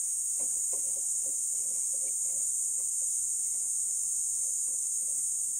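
Steady high-pitched chorus of insects, with faint light clicks and taps of a metal mount adapter being handled.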